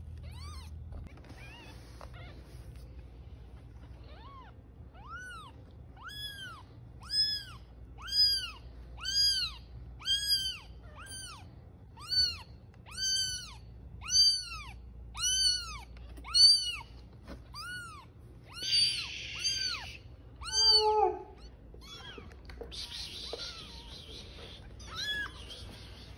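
Very young kitten mewing over and over in a long series of high-pitched mews, about one a second, each rising then falling in pitch, ending with one lower, falling cry.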